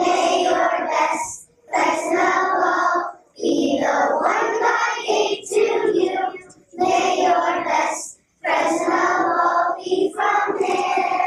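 A group of young children singing together in chorus, in short phrases with brief pauses for breath between them.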